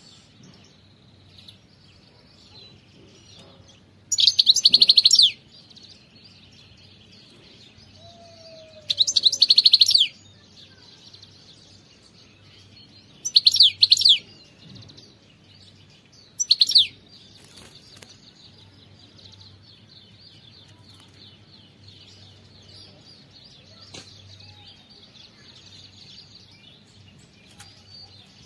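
European goldfinch singing four short, loud phrases of rapid trilled notes, a few seconds apart, over faint steady twittering. The phrases stop about two-thirds of the way through.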